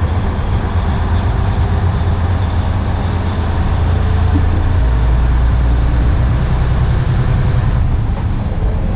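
Inside a semi truck's cab at highway cruise: a steady low diesel engine drone under tyre and road noise. About halfway through, the low hum shifts deeper.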